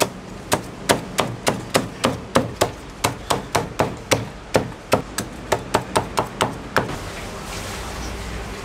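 Chinese cleaver chopping crispy-skinned roast pork belly on a round wooden chopping block: quick, even strikes at about four a second. The strikes stop about seven seconds in.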